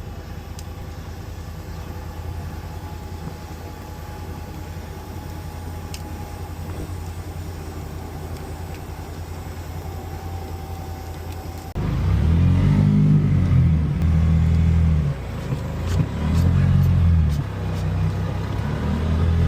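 A stuck vehicle's engine running steadily at low revs, then about twelve seconds in it is revved hard several times, the pitch rising and falling with each push, as it tries to pull out of the boggy creek mud.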